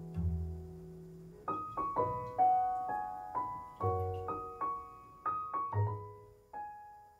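Background piano music: a gentle melody of single notes at a steady pace over a few low bass notes.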